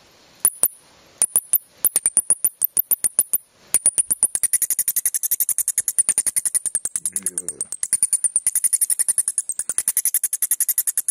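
Bat calls: very high-pitched clicking chirps, a few scattered ones at first, then a fast, even run of them from about four seconds in.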